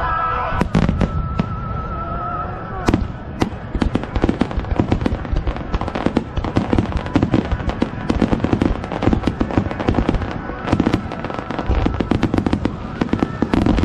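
Fireworks display: aerial shells bursting with sharp bangs and crackling, a few separate reports at first, then a rapid, dense barrage from about four seconds in.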